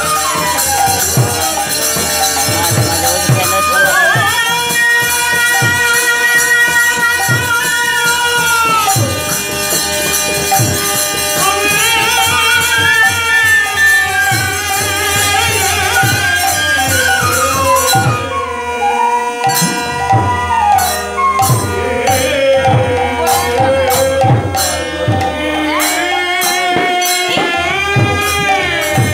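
Bengali kirtan ensemble playing: a bamboo flute carries a wavering, held melody over sustained harmonium chords, with khol drums beating underneath.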